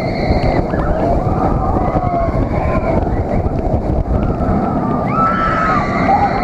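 Manta flying roller coaster train racing along its track, heard as a heavy rush of wind on the camera's microphone over the train's rumble. A wavering whine rides on top, fading early and coming back strongly near the end.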